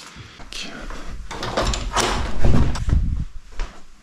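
Plastic Lego pieces being handled and fitted together: a scattering of light clicks and knocks, with some low thumps in the middle.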